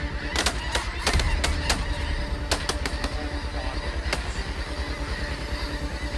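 A rapid volley of shotgun shots from several hunters firing together, about ten in the first four seconds, the last one coming a little after the rest.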